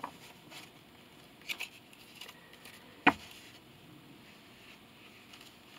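Quiet handling of tarot card decks and their boxes: faint rustles and a few soft taps, with one sharp click about three seconds in.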